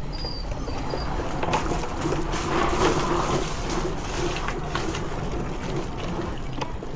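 Steady outdoor road rumble while riding a bicycle along a street, with scattered clicks and a louder stretch about halfway through. A few short high chirps sound at the very start.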